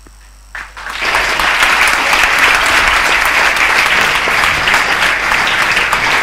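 A large room of students applauding, steady dense clapping that starts about half a second in and builds within a second.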